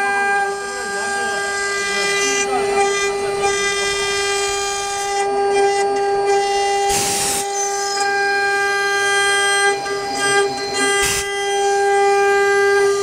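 AKM3015 rotary CNC router's spindle running at a constant high speed, a steady whine with a fixed pitch, as the router cuts wood. Short noisy bursts come about seven and eleven seconds in.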